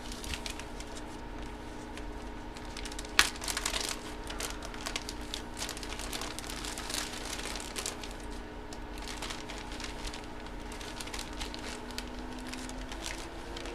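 Plastic crinkling and rustling with irregular small clicks, from trading cards and their plastic sleeves and packaging being handled, with one sharper tick about 3 seconds in.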